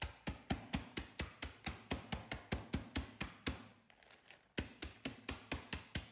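A wooden pestle pounding roasted peanuts in a plastic zip bag on a wooden cutting board: a steady run of knocks at about four a second, a short pause a little over halfway through, then the knocking resumes.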